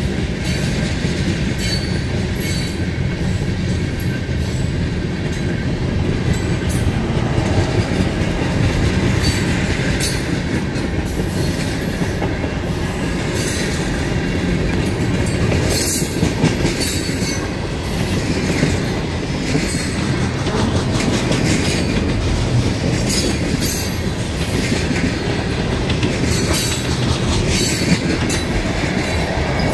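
Freight train's tank cars rolling past close by: a steady low rumble of wheels on rail, with irregular clicking and knocking as the wheels pass over rail joints.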